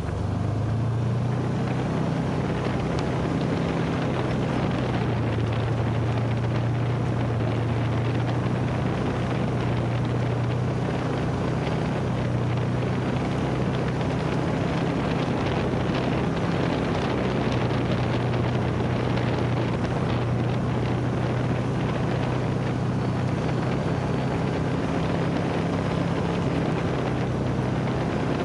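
UTV engine running at a steady cruising speed, a constant low drone, with wind noise on the microphone and trail noise from the moving vehicle.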